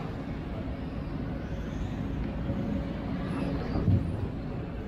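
RC stadium trucks running on a carpet track: a steady motor and tyre noise with faint rising and falling whines, and a sharp thump about four seconds in.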